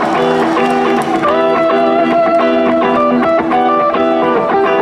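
Live rock band playing: electric guitars picking a steady repeating figure.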